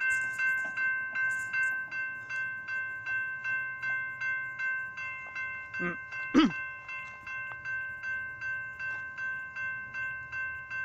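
Railroad crossing warning bell ringing steadily, about three strikes a second, sounding while the gates are down and the lights flash for an approaching train. About six and a half seconds in, a short sound is briefly louder than the bell.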